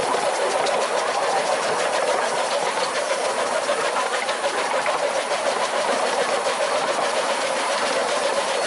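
15-inch gauge Bassett-Lowke Class 30 Atlantic steam locomotive 'Count Louis' running under steam, its exhaust beats coming in a steady, rapid rhythm.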